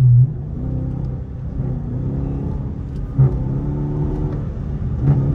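Dodge R/T's HEMI V8 accelerating hard at highway speed, heard from inside the cabin. The engine note climbs, drops sharply with a burst about three seconds in as the transmission shifts up, then climbs again.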